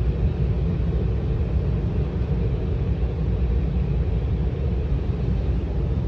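Carwash tunnel dryer blowers running, heard from inside the car: a steady, even rush of air, heaviest in the low range.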